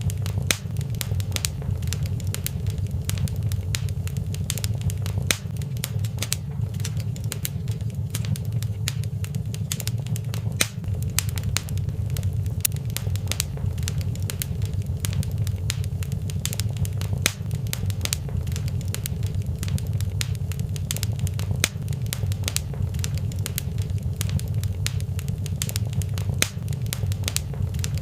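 Fireplace fire crackling, with many irregular sharp pops and snaps over a steady low rumble.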